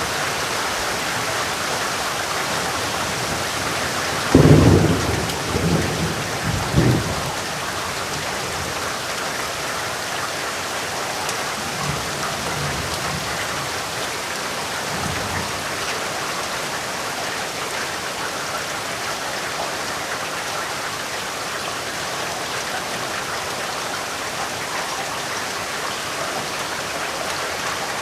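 Steady heavy rain falling, with a sudden loud clap of thunder about four seconds in that rumbles away over the next three seconds, and a fainter distant rumble of thunder a few seconds later.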